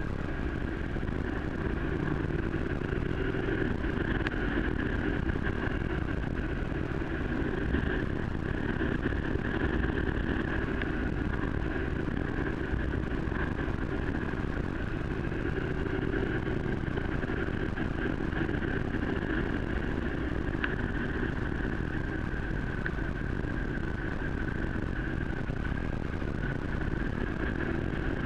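Steady vehicle running noise at an even speed on a wet dirt road: engine, tyres and wind blending into one constant drone with no change in pitch or level.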